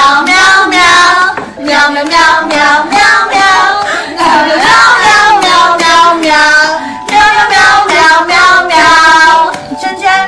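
A high-pitched voice singing, loud and nearly continuous, with short breaks between phrases.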